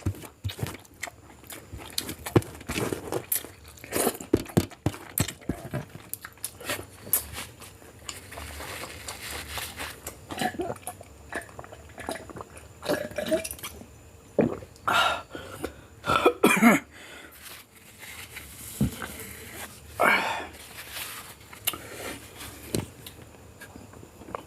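A person eating biryani close to the microphone: chewing, biting and mouth sounds with many irregular clicks and short crunches.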